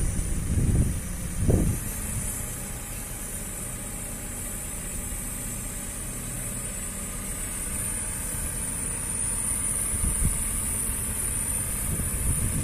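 2016 JCB 540-170 telescopic handler's diesel engine idling steadily, with a few gusts of wind buffeting the microphone in the first two seconds.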